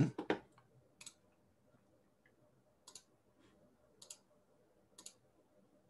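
Four or five short, sharp clicks at a computer, spaced about a second apart, over faint room tone.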